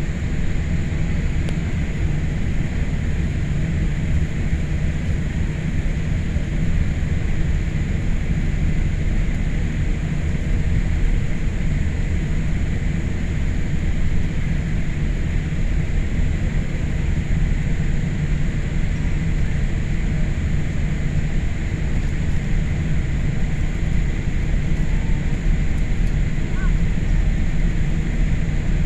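Steady low rumble and hiss of cabin noise inside a Boeing 787 on the ground before takeoff.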